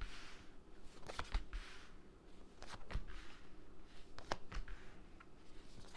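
Cards from a reading deck being drawn and slid across a tabletop, soft swishes of card on card and card on table with a few sharp taps as cards are laid down, at an uneven pace.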